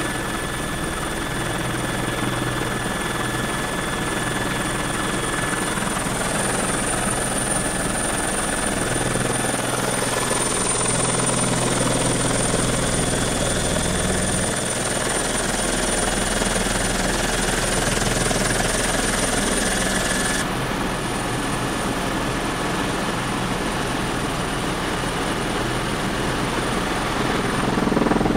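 Helicopter engine and rotor noise heard from inside the cabin in steady flight, with a constant high-pitched whine on top.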